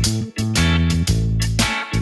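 Background music: guitar-led funk-rock track with strong bass and a steady beat.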